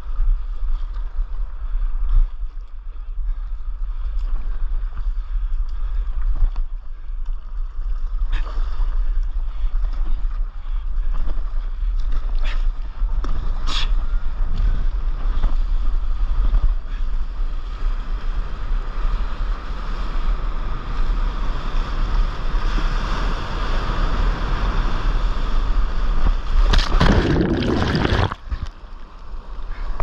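Wind buffeting an action camera's microphone over the wash and slap of seawater around a stand-up paddleboard, with a few sharp splashes. Near the end comes a loud rush of breaking whitewater.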